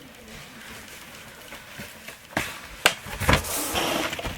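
Unboxed monitor packaging and accessories being pushed aside across a surface by hand: a few sharp knocks about halfway through, then a rough sliding scrape near the end.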